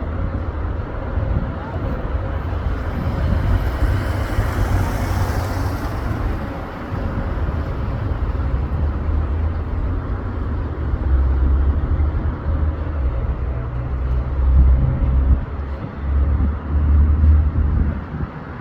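Low rumble of a moving vehicle with uneven surges, and a hiss that swells and fades about four to six seconds in.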